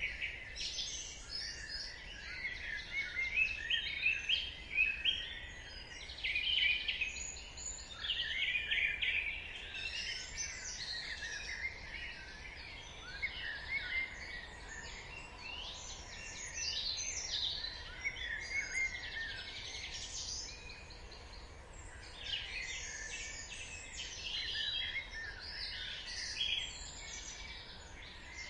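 Dawn chorus: many songbirds chirping and trilling at once, overlapping calls throughout, over a faint low background hum.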